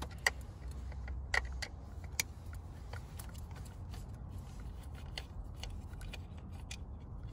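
Light, irregular clicks and ticks of a Phillips screwdriver backing out the small screws on the back of a stock Subaru WRX STI steering wheel, a few sharper ones about a second and two seconds in. A low steady hum runs underneath.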